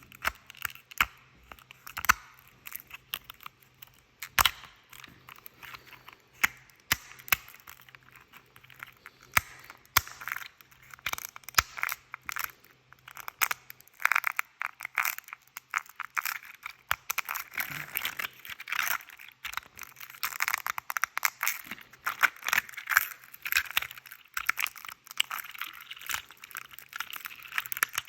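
Print-in-place articulated 3D-printed plastic slug being bent and twisted by hand, its segment joints snapping and cracking like a back being cracked. Scattered sharp clicks at first, then denser runs of crackling clicks from about a third of the way in.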